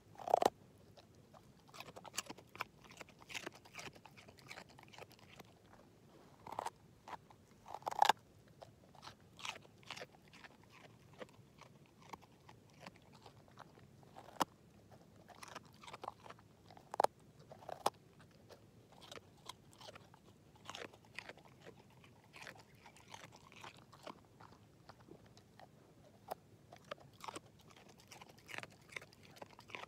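An English setter chewing and crunching on a raw carrot: irregular bites and crunches with short pauses between them, the loudest near the start and about eight seconds in.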